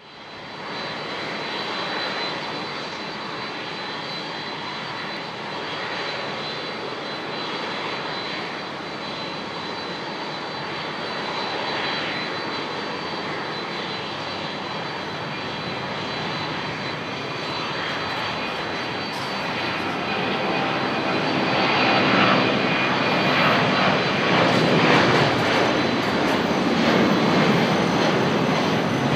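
Boeing 767-300ER's twin General Electric CF6-80C2 turbofans at takeoff power during the takeoff roll and rotation: a steady rushing jet noise with a thin high fan whine. It grows louder about two-thirds of the way through as the airliner draws level and lifts its nose.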